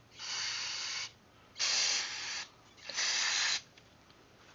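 Aerosol carburetor cleaner sprayed in three short hissing bursts into a small-engine carburetor to flush out dirt, each burst about a second or less.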